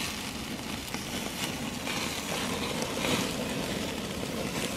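Hamburger patties sizzling over the flaming coals of a charcoal grill, with faint crackles from the fire.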